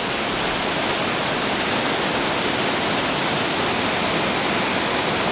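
Water pouring steadily over a low wooden dam, an even, unbroken rush of falling water.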